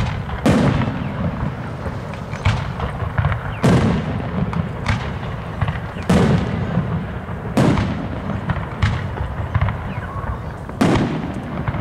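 Aerial firework shells bursting overhead: about eight loud booms at uneven intervals, each trailing off in an echo.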